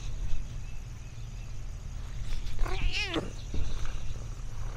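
Domestic cat giving a single meow a little under three seconds in, its pitch rising and then falling.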